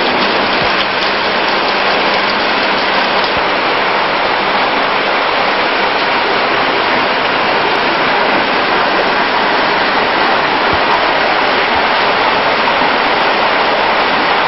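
A loud, steady hiss that starts abruptly and holds even throughout, with no rhythm or change in pitch.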